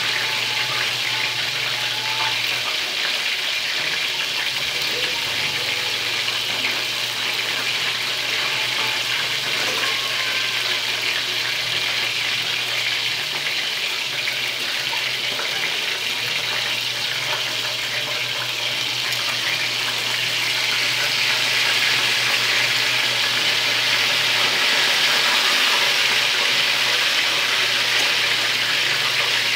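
Chicken drumsticks sizzling in hot oil in a shallow pan, a steady hiss that grows a little louder about two-thirds of the way through.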